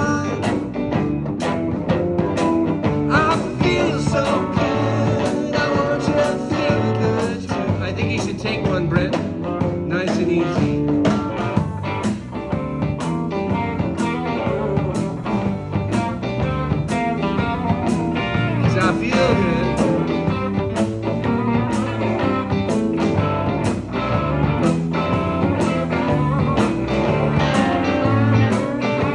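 Live band playing garage rhythm and blues on electric guitars, keyboard and drum kit, with a steady drum beat.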